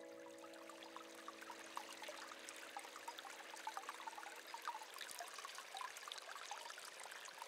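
Faint trickling and bubbling of running water, an irregular patter of small splashes. A sustained music chord fades out over the first two seconds or so.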